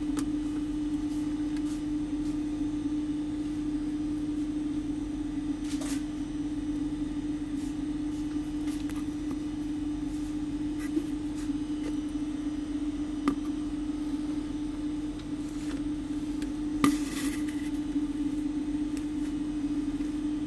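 A steady electrical hum at one pitch, with a few light clicks and knocks from small tools being handled on a workbench, the loudest near the end.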